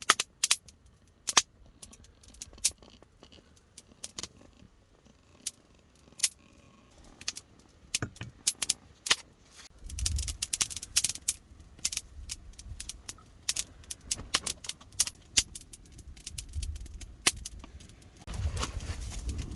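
Wood fire crackling, with irregular sharp pops and snaps that come thicker in the second half. A low rumble joins about halfway through.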